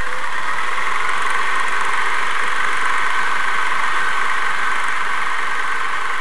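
Reel-to-reel film projector running with a steady mechanical whirr.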